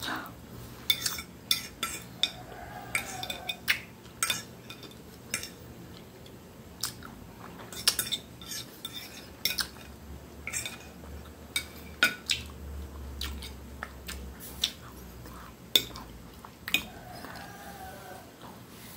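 Knife and fork clinking and scraping against a ceramic dinner plate: irregular sharp clicks, one or two a second, as food is cut and gathered up.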